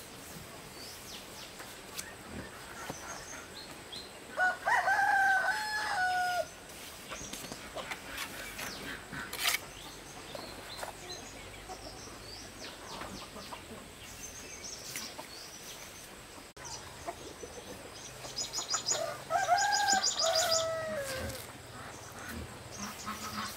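A rooster crowing twice, each crow about two seconds long, the second some fifteen seconds after the first. Scattered light clicks and knocks lie in between.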